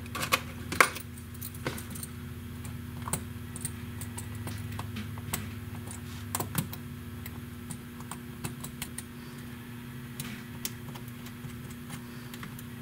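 A small screwdriver tip clicking and scraping on the metal parts of a Pentax K1000 film camera's top deck while loosening a small slotted ring. The ticks are light and irregular, with a few sharper ones, over a steady low hum.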